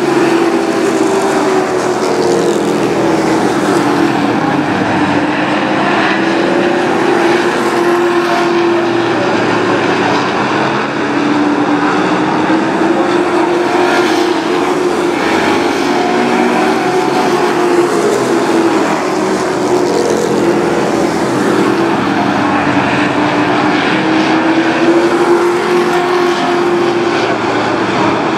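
Engines of a field of short-track race trucks running laps on an oval, a loud continuous drone whose pitch rises and falls in slow waves every several seconds as the pack accelerates down the straights and lifts into the turns.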